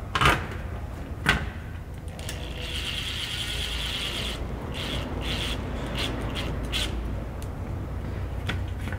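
Brushless power drill driving a mounting screw through a metal wall enclosure into the wall. Two sharp clicks come first, then the drill runs steadily for about two seconds, then gives several short bursts as the screw is seated.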